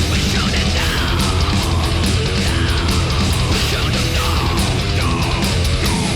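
Loud heavy metal background music with distorted guitars and a driving beat.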